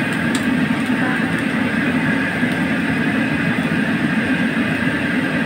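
A commercial gas wok burner running steadily under a wok of cut octopus, which sizzles after a splash of water. A ladle clicks against the wok a couple of times at the start.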